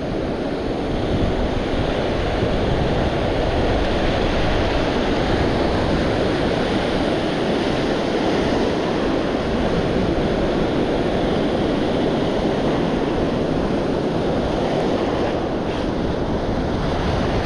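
Ocean surf breaking and washing up a sandy beach, a steady rush of waves and foam, with wind buffeting the microphone.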